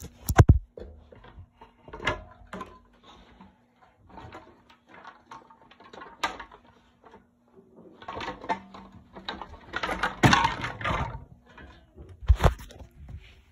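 Hunter Infiniti ceiling fan being handled and turned over: scattered knocks and clicks, a sharp knock about half a second in, and a busier stretch of clattering and scraping about two thirds of the way through.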